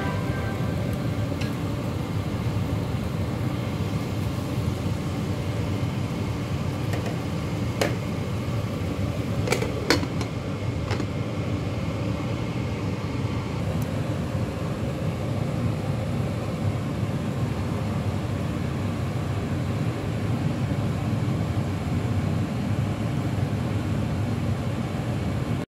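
Water boiling steadily in a wok under a plate of chicken being steamed: an even rumbling hiss, with a few light clicks, the clearest about 8 and 10 seconds in.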